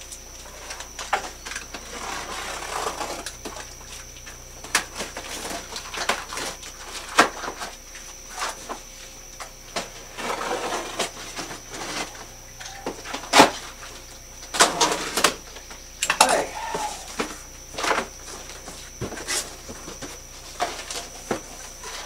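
Cardboard shipping box being opened by hand: scraping and rustling of cardboard and tape with many sharp taps and knocks, the loudest about halfway through.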